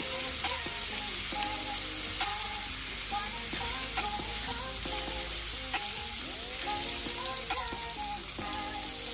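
Meat frying on a hot camp pan: a steady sizzling hiss. A song plays underneath with short, held notes.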